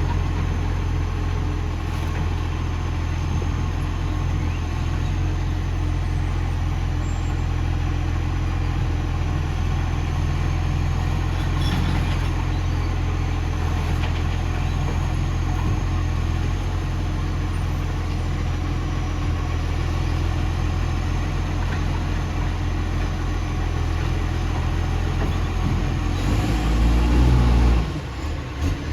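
Bus engine idling steadily with a loud exhaust leak. Near the end it revs up briefly and drops back.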